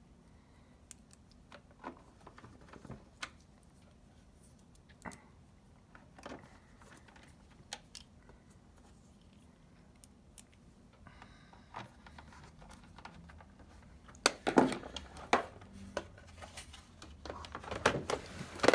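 Light clicks and taps of a PlayStation 4's plastic and metal parts being handled during reassembly. Louder clattering and snapping as the console's plastic top cover is set on and pressed into place comes about three-quarters of the way through and again near the end.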